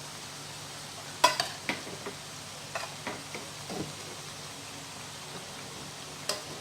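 Breadfruit pieces frying in hot oil with a steady sizzle. A utensil clinks against the pan several times, sharply, about a second in and again around three seconds in, and once more near the end.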